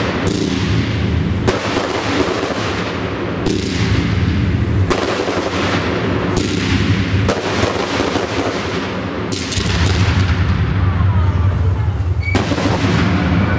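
Fireworks display: aerial shells bursting in a series of about eight sharp bangs spaced a second or two apart, each trailing off in a long fading echo, over a steady low rumble.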